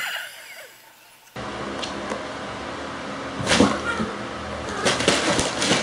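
House cats startling, with sudden sharp sounds about three and a half seconds in and again about five seconds in, over a steady background hum.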